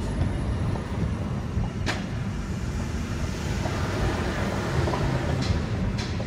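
Road noise inside a moving car's cabin: a steady low rumble of tyres and engine on city pavement. A sharp click comes about two seconds in, and a few light, evenly spaced ticks come near the end.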